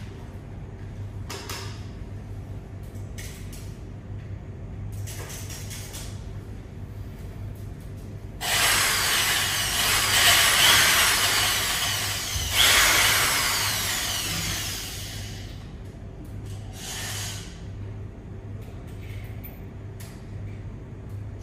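Corded electric drill run free in the air, switched on suddenly about eight seconds in and pushed up again a few seconds later, then winding down over a few seconds. A short, softer burst follows.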